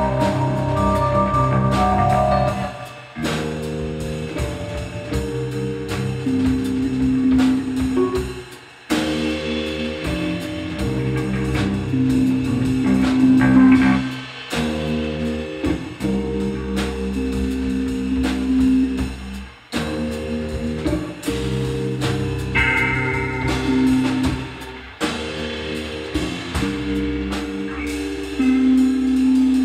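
Live instrumental band playing: electric bass, drum kit and keyboard working through a heavy repeating riff that breaks off briefly and starts again about every five and a half seconds.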